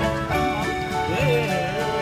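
Upbeat background music with plucked strings, a steady beat and a wavering melody line.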